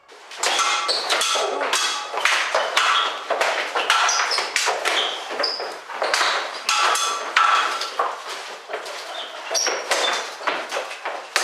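Steel weapons clashing in sword-and-buckler sparring: a rapid, irregular run of sharp metallic strikes, each ringing briefly.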